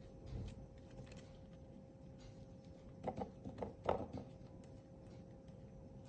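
Quiet kitchen with a faint steady hum. A few short taps and scrapes come about three to four seconds in, from chopsticks spreading tandoori dip over a flatbread wrap on a ceramic plate.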